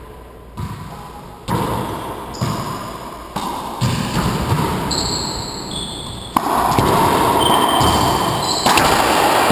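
A racquetball bouncing on the hardwood floor of an enclosed court, a knock about once a second. About six seconds in, a sharp crack of ball on racquet starts a rally, and hits and footsteps echo loudly around the court, with short high squeaks of sneakers.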